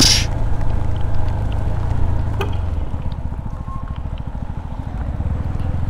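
Single-cylinder engine of a CFMoto 250NK motorcycle running at low revs, heard from the rider's helmet. About three seconds in, its steady note gives way to an even, pulsing idle.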